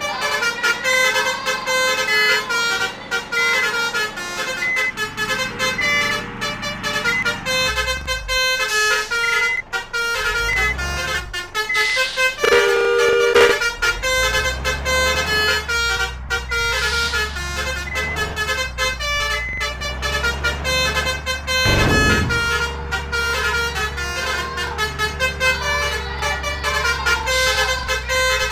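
Bus 'basuri' musical horns playing a tune of short, rapidly changing notes, with a louder held lower horn note about halfway through. A low engine rumble joins in during the second half.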